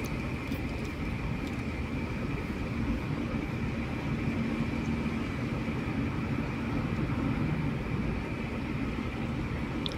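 Steady road noise and engine drone inside a moving car's cabin: tyres on asphalt and the car's engine at cruising speed, an even rumble with a low hum.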